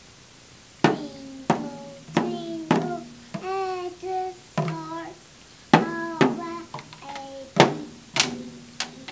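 A toddler beating a child's toy drum kit with drumsticks: about ten irregular strikes, each ringing briefly, while he sings along in a small child's voice.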